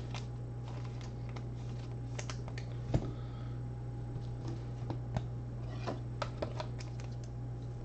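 Light, irregular clicks and taps with a louder knock about three seconds in and a quick run of clicks near the end, over a steady low electrical hum.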